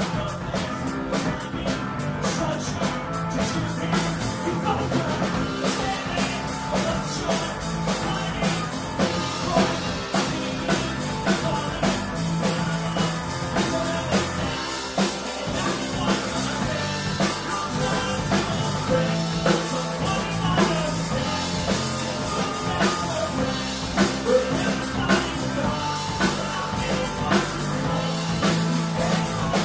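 Live rock band playing a punk-rock cover, with a drum kit keeping a steady beat under guitar and singing.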